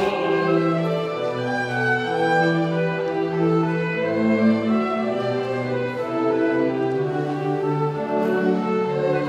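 Slow music played on bowed strings, with long held notes over a low bass line.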